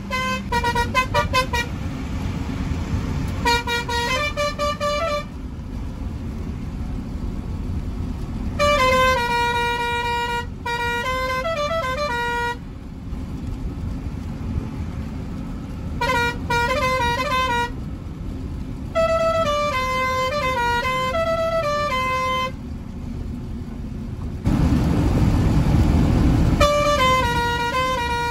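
Truck's musical horn playing short stepping tunes in bursts of a few seconds each, over the truck's engine and road noise. Near the end a louder low rumble swells for about two seconds.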